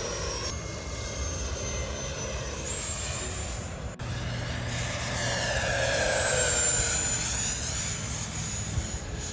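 Radio-controlled model jet flying with a high, steady whine. It breaks off briefly about four seconds in, then grows louder and drops in pitch as the jet passes by.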